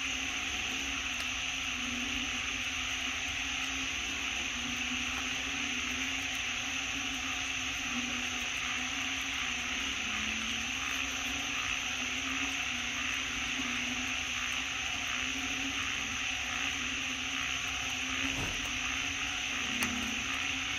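Steady outdoor forest background: an even hiss with a low, slightly wavering hum underneath.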